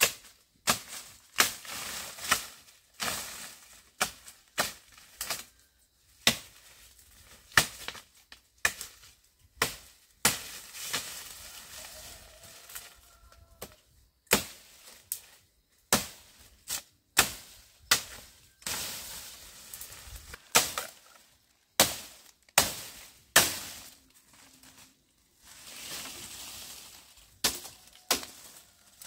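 A series of sharp knocks or chopping strikes at uneven intervals, about one a second, with a few short stretches of rustling noise between some of them.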